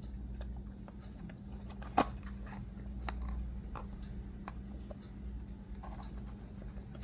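Fingers handling and turning a small cardboard box, with light taps and rubs on the card and one sharp click about two seconds in. A steady low hum runs underneath.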